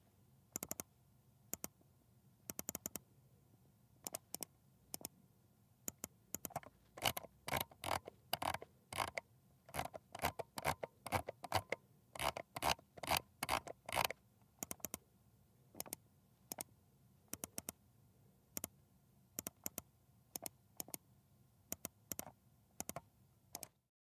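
Dell computer mouse buttons clicking, most clicks a quick double snap of press and release, in irregular runs that come faster and louder in the middle.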